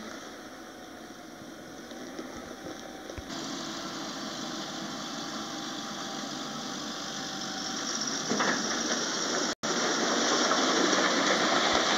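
Large Fendt tractor's diesel engine running as it pulls a tipper semi-trailer on a dolly. It grows louder over the last few seconds as the rig passes close, and cuts out for a split second near the end.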